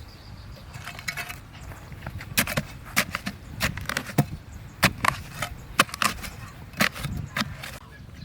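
Chopping into wood with a blade: a series of sharp, irregular strikes, one or two a second, starting about two seconds in.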